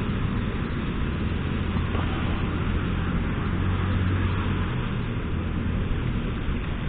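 Motorcycle on the move, its engine running with a steady low hum under constant wind and road noise.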